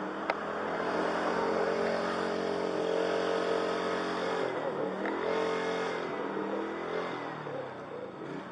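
A motor vehicle engine running, its pitch holding steady, then dipping and climbing again about five seconds in. A sharp click just after the start.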